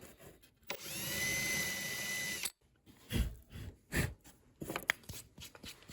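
Power drill with a quarter-inch bit spinning up and running steadily for about two seconds while boring a shallow magnet hole, then stopping abruptly. A few short knocks and clicks follow.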